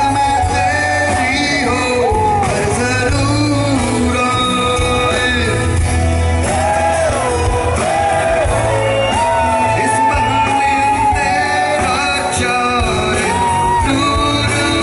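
Live band playing a song, with a male lead vocal carrying the melody over drums, acoustic guitar and a steady bass, heard through the PA.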